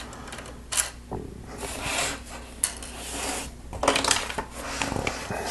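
Small plastic Lego pieces clicking and clattering as they are handled and pressed into place, with a stretch of rustling in the middle and a cluster of clicks about four seconds in.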